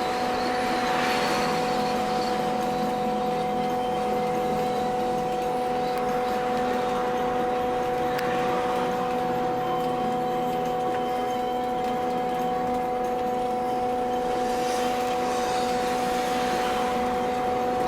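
Inside a moving trolleybus: a steady two-note electrical whine runs over road and rolling noise, which swells and fades a few times.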